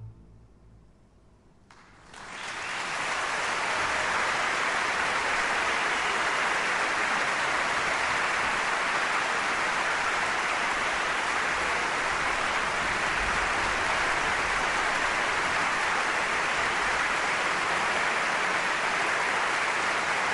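A large concert audience applauding after an orchestra's final note. The last low note sounds at the very start, followed by a short hush; then the applause swells quickly about two seconds in and continues steadily.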